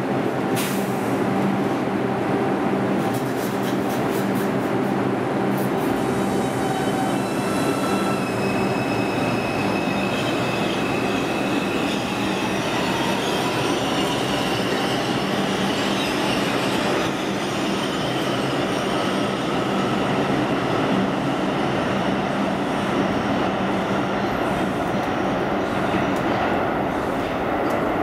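Bombardier R142 subway train running on the rails, a steady loud rush of wheel and rail noise with the whine of its Alstom ONIX inverter and AC traction motors. The motor tones change pitch about seven seconds in and again a little later.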